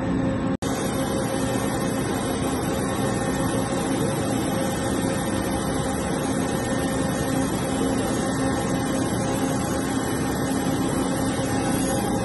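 A CNC horizontal boring mill running, giving a steady mechanical hum and whir with a hiss. The sound begins after a brief dropout about half a second in.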